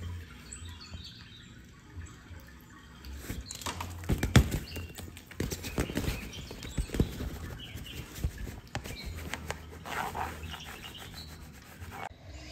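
A cat shifting and pawing about inside a fabric play tunnel: rustling of the tunnel fabric with scattered scratches and knocks, quiet for the first few seconds and loudest about four seconds in.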